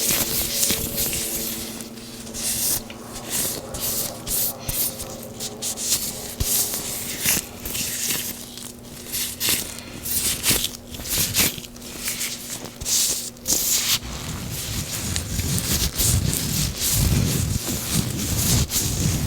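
Gloved hands slick with oil rubbing and crinkling close to the microphone, in irregular crackling, squishing strokes; the rubbing turns deeper about two-thirds of the way in.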